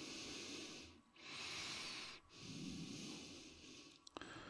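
A person breathing audibly through the nose close to the microphone: three faint, hissy breaths of about a second each, with short pauses between them and a softer one near the end.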